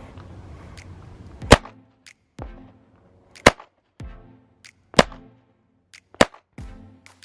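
Slow, single shots from a GSG 1911-22 .22 pistol: four loud cracks about one and a half to two seconds apart, with fainter shots between them.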